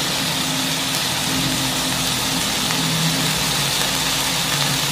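Minced beef sizzling steadily as it fries in a wok, with a steady low hum underneath.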